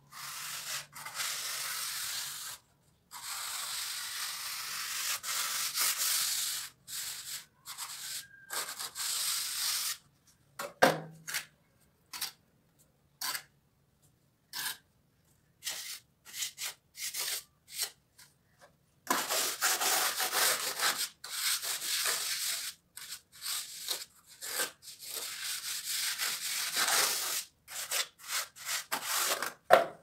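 Hand tool rubbing and scraping over fresh cement plaster on concrete stair treads in repeated rasping strokes: long runs near the start and in the last third, scattered short strokes in between. One short knock about eleven seconds in.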